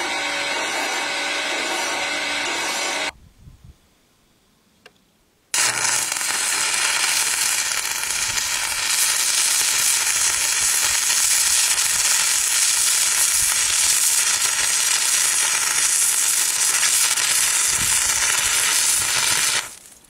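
A metal lathe runs steadily with a hand file held against the spinning workpiece for about three seconds, then stops. After a short quiet, an electric welding arc crackles and hisses steadily for about fourteen seconds, then cuts off near the end.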